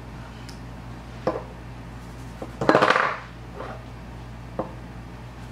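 Lip balm being handled and applied: light clicks from the tube and cap, and near three seconds in a short, louder smacking sound as the lips press together over the balm.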